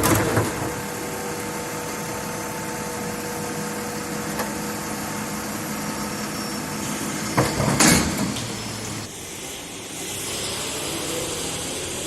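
Garbage truck running steadily with a faint whine, with loud metallic clanks at the start and again about seven to eight seconds in.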